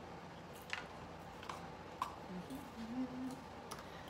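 A Pringles potato crisp being chewed: a few separate sharp crunches spread over the seconds, with a short low hum of the voice about halfway through.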